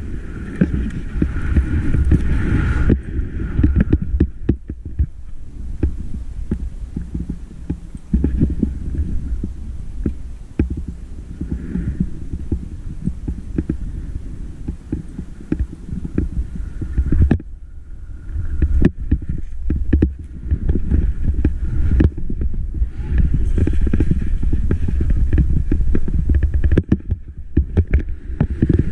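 Wind buffeting an action camera's microphone as a skier descends, a steady low rumble, with skis hissing and scraping through snow and many scattered knocks.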